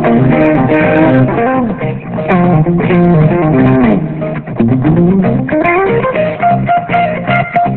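Instrumental band music: guitar over bass guitar, with notes sliding up and down, and percussion beneath.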